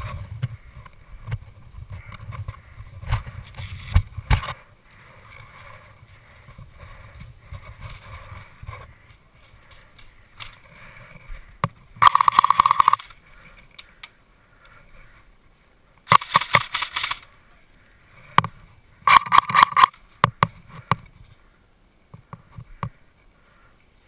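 Airsoft electric guns firing three full-auto bursts of about a second each, rapid clicking shots, roughly 12, 16 and 19 seconds in, with a few single clicks between. Before them, low rustle and bumping of movement.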